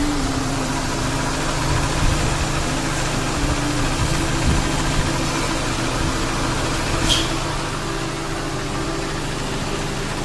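Honda Accord engine idling steadily, with a low hum and a single short click about seven seconds in. The car's air-conditioning compressor has failed, its clutch coil overheated and melted, the source of an abnormal running noise.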